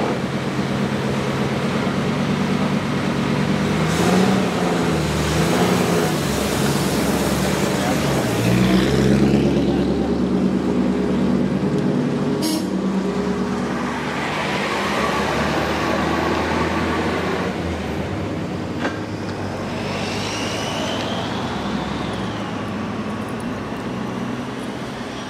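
Large straight-eight engine of a 1935 Duesenberg SJ Speedster running as the car drives off, its pitch rising and falling several times as the revs change.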